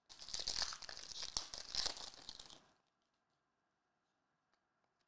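A Panini Select La Liga trading-card pack's foil wrapper being torn open by hand. It crinkles and crackles for about two and a half seconds, then stops.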